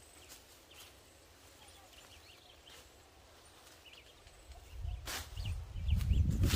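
A long-handled digging fork working soil among sweet potato vines: occasional short strikes and scrapes, with faint bird chirps. Near the end a loud, rough low rumble comes in, with two sharper strikes.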